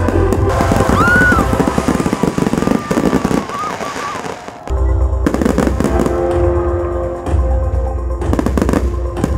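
Fireworks display: rapid crackling and popping of fireworks over loud music with heavy bass. The sound dips briefly a little before the middle, then comes back abruptly.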